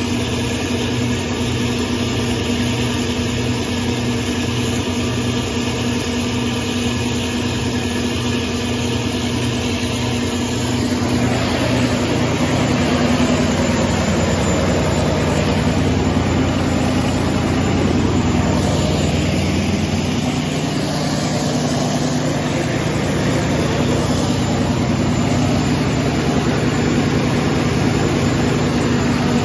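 Caterpillar 3512 V12 diesel generator set running steadily at near its full 700 kW rated load on a load bank. About eleven seconds in, the engine sound becomes fuller and slightly louder.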